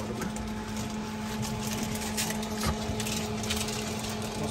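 A steady mechanical hum, with a low drone and a few fainter steady tones, and small clicks and rustles over it.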